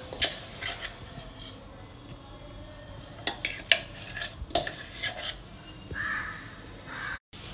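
Metal spoon and dishes clinking: a dozen or so irregular taps and knocks, with some scraping, as freshly ground chutney is handled in a steel vessel.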